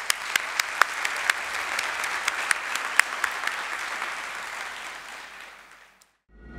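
Audience applauding, with a few sharp individual claps standing out, dying away near the end.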